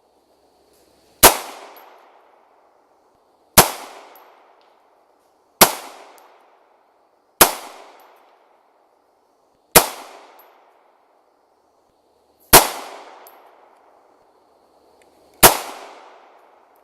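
Seven gunshots fired one at a time, about every two to three seconds, each sharp crack trailing off in an echo.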